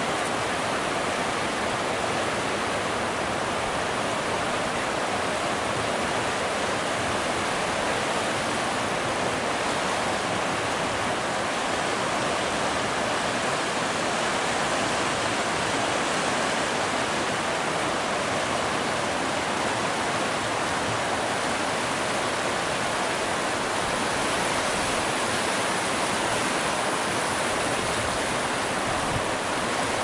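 River rapids rushing and churning over rocks: a steady, even rush of whitewater.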